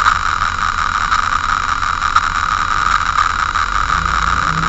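A stopped vehicle's engine idling, heard through a dashcam microphone with a steady hiss over it. Near the end a deeper engine rumble swells.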